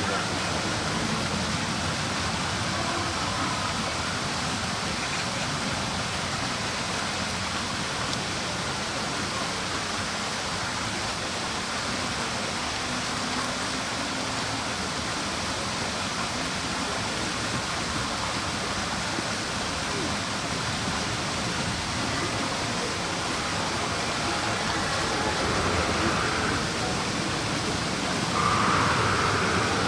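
A steady rushing noise, even and unbroken, like running water or air, with a faint brief rise near the end.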